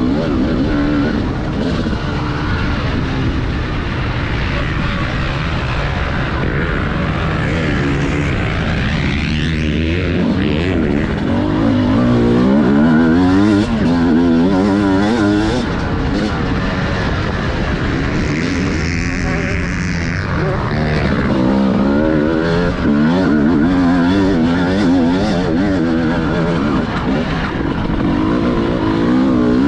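TM Racing 250 motocross bike's engine under race load, heard from the bike itself. It revs up and drops back again and again as the rider accelerates, shifts and backs off along the dirt track.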